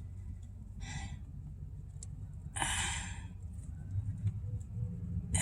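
A person sighing twice, two breathy exhalations about a second in and again near the three-second mark, over a steady low hum.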